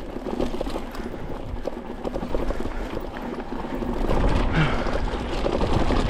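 Full-suspension mountain bike rolling fast down a dry dirt singletrack: a steady crunch of the tyres over dirt and small stones, with dense clicks and rattles from the bike and a low rumble, growing louder about four seconds in. A brief voice sound comes at about four and a half seconds.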